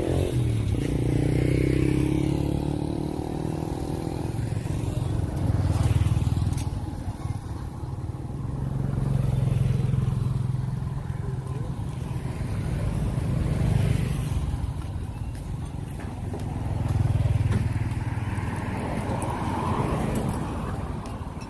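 Road traffic passing one after another, each vehicle swelling and fading over a few seconds.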